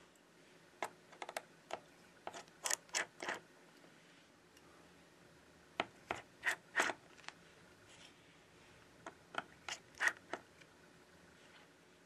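Precision screwdriver working tiny screws inside an opened iPad Air 4: sharp little metal-on-metal clicks and ticks in four short bursts, a few clicks at a time.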